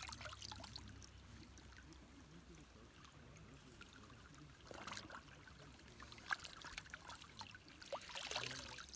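Hands dipping and scooping water in a shallow creek, with faint trickling and splashing; the splashes come louder about five seconds in and again near the end.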